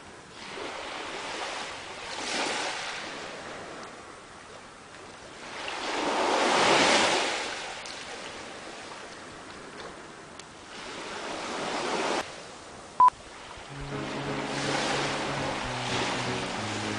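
Sea water rushing and splashing in swells that rise and fade every few seconds, the biggest about seven seconds in. A short, sharp beep about thirteen seconds in, then music with a steady, blocky pattern of tones starts near the end.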